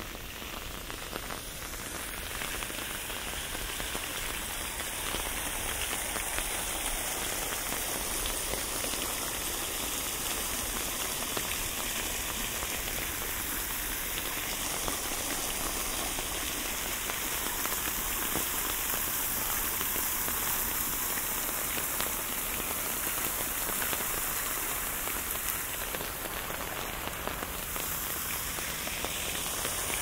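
Steady rain falling and pattering on surfaces, recorded binaurally, as a dense, even hiss that grows a little louder over the first few seconds and then holds steady.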